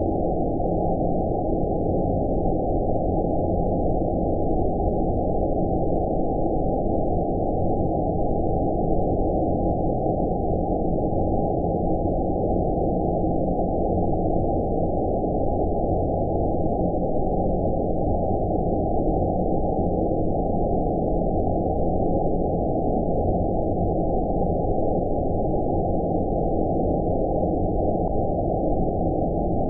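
Steady, deep, muffled noise with no high end, unchanging throughout: an 'outer space' ambient white-noise track.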